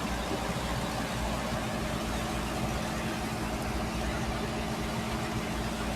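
A steady engine-like drone with a constant hum, under a broad, even hiss of a high-pressure water jet cutting into compacted sand.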